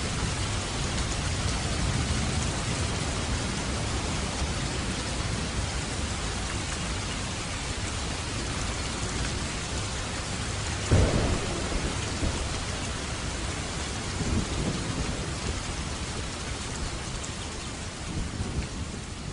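Steady rainfall with thunder: a sharp thunderclap about halfway through, and lighter rumbles of thunder later on.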